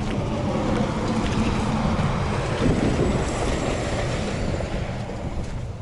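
Wind buffeting the microphone over a rushing of water as a thermos is rinsed out with freshly boiled water.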